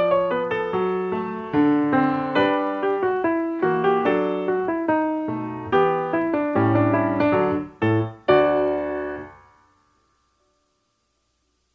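Background piano music, a steady run of notes that ends on a held chord about eight seconds in and fades out, followed by silence.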